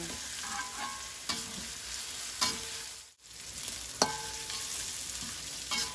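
Spice paste sizzling in hot oil in a metal wok while a metal spatula stirs and scrapes it, with a few ringing clinks of spatula on wok, the clearest about four seconds in. The sizzle briefly drops out just past halfway.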